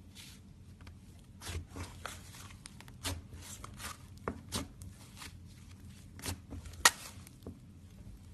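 Slime being squeezed and poked by hand, giving irregular sticky pops and clicks over a low steady hum, with one sharp pop about seven seconds in the loudest.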